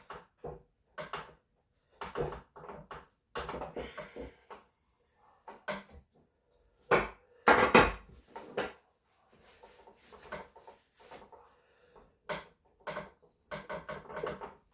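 Metal parts and hand tools clinking and knocking together in irregular bursts, the loudest about seven to eight seconds in.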